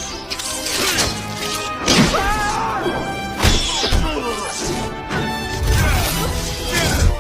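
Background music with several loud whack-and-smash impact effects.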